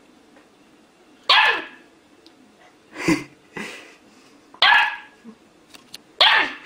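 Siberian Husky puppy barking in short yaps, each sliding down in pitch: three loud barks about a second in, past four and a half seconds and near the end, with two softer ones around three seconds.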